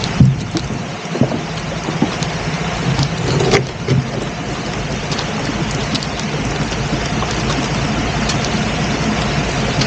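A boat engine running steadily under a loud, constant rushing noise, with a faint low hum.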